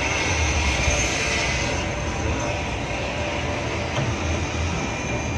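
Inside a moving bus: steady engine rumble and road noise, a low wavering drone under a constant hiss.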